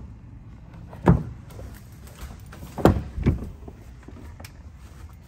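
Sharp clunks from a Ford F-150 pickup's body hardware. The fuel filler door is pushed shut with a single clunk about a second in. About three seconds in, two clunks close together come from a cab door being unlatched and opened.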